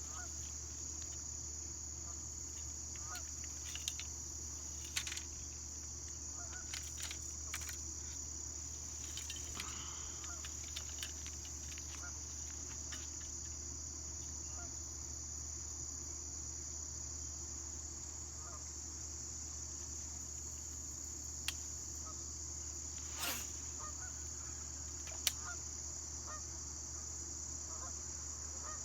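Steady high-pitched chirring of insects, such as crickets, with a low hum underneath and a few short, sharp clicks now and then.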